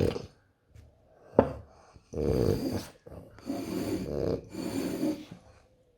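French bulldog snorting and snoring through its short muzzle: three breaths in a row, each under a second long. A single sharp click comes just before them.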